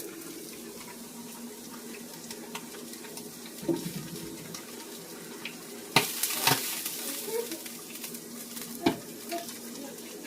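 Kitchen food-handling sounds: a few sharp knocks and clinks of utensils or pans, the loudest about six seconds in with a brief rustling hiss after it, over a steady low hum.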